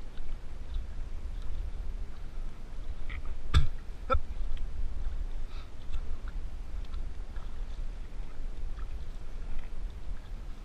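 Paddling an outrigger canoe on calm water: faint small splashes and drips from the paddle strokes over a steady low rumble, with two sharp knocks about half a second apart a few seconds in.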